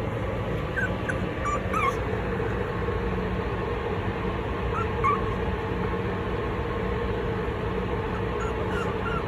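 Toy poodle puppies whimpering, with short high squeaks in small clusters a few times over a steady low hum.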